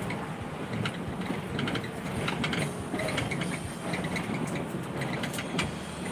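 Cabin noise inside a moving coach bus in heavy rain: a steady low drone of engine and road, with frequent light clicks and rattles.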